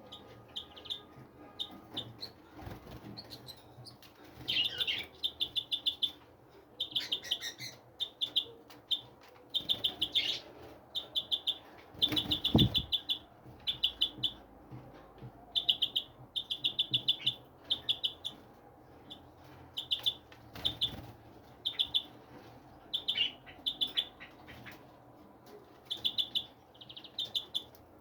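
Small birds chirping: quick trains of high, rapidly repeated chirps coming in short bursts again and again. One low thump about twelve seconds in.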